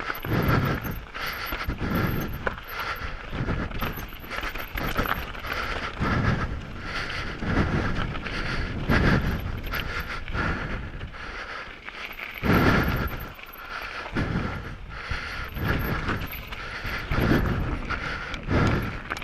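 Heavy breathing right at the microphone, a loud exhale about every one and a half to two seconds, over the continuous rattle and clatter of a Canyon Sender downhill mountain bike's tyres, chain and suspension on rough trail.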